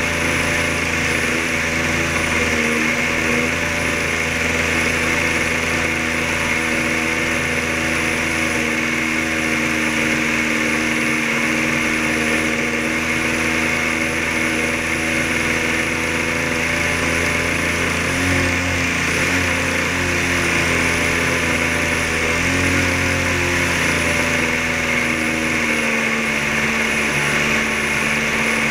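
Fixed-wing drone's small piston engine running steadily in cruise flight, heard from an onboard camera with wind rushing past. The pitch shifts slightly about two-thirds of the way through.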